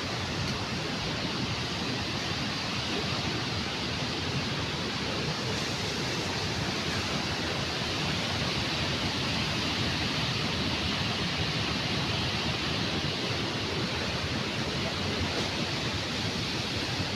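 Steady rushing of a waterfall in full flow after rain, a loud, even noise that grows slightly louder toward the end.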